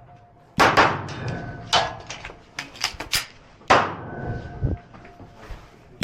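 Pistol shots fired in an IDPA stage: about eight sharp cracks, singly and in quick clusters of two to four, each trailing off in echo.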